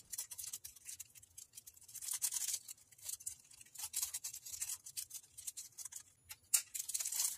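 Small clear plastic zip-top baggie crinkling and rustling as it is handled and filled with styrofoam bones, in irregular crackles that grow louder near the end.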